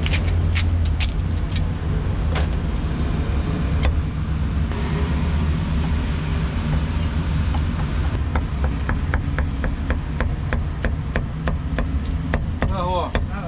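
Meat cleaver chopping roast pork on a thick wooden chopping block: a few separate chops at first, then a quick steady run of chops at about four a second in the second half. A steady low rumble runs underneath.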